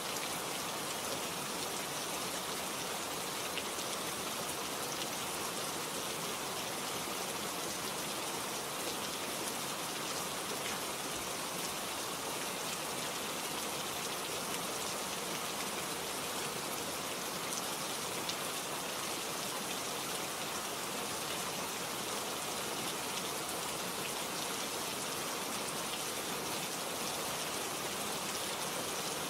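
Steady rain falling, an even hiss with fine patter of drops hitting surfaces.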